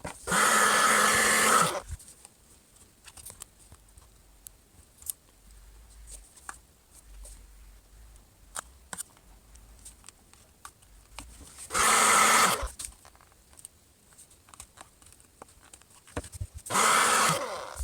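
Hot-air blower (heat gun or hair dryer) switched on in three short blasts, near the start, about twelve seconds in and near the end, heating the phone's glass to soften the adhesive. Faint clicks and scrapes of a card and knife prying at the glass between the blasts.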